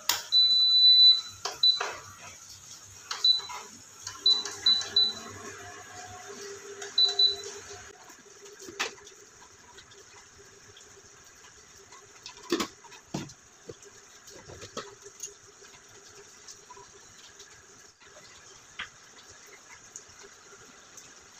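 Induction cooktop control panel beeping: one long beep, then a run of short beeps at the same pitch as its touch keys are pressed. A few sharp knocks and clicks follow as a plastic container is handled.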